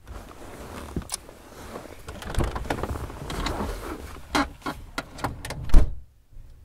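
A passenger getting out of a car: rustling and shifting with scattered clicks, then a heavy thud near the end as the car door is shut, the loudest sound.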